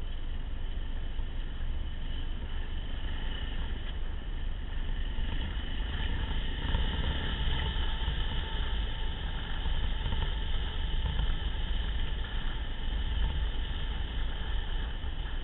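Motorcycle engine running steadily while riding over a dirt track, with heavy wind rumble on the microphone.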